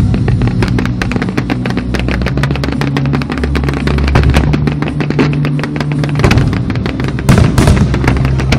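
Aerial fireworks going off over music: a dense, rapid, irregular crackle of pops and bangs from crackling shells and fountains, with a heavier cluster of loud bursts about seven seconds in.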